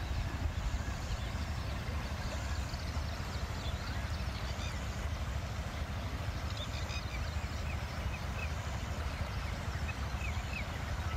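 Open-air ambience: a steady low rumble with small birds chirping faintly, more often near the end.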